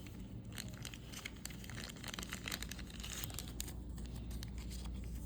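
Light rustling and crinkling as booster pack wrappers and trading cards are handled, with many small irregular clicks of cards being flicked through.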